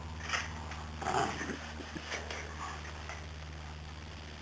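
A small terrier tugging and shaking a plush toy: a few short, faint scuffling noises over a steady low hum.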